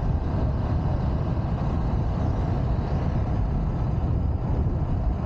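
Steady rush of wind and road noise from a moving motorcycle, heavy and low, with no change through the stretch.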